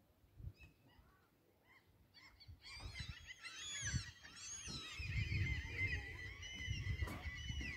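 A flock of birds calling all at once, many overlapping rising-and-falling calls starting about three seconds in, with low thuds underneath.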